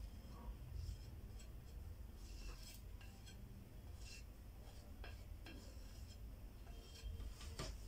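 Faint scraping and a few light taps of a silicone spatula pushing ground spices off a plate into a food processor bowl, over a low steady hum.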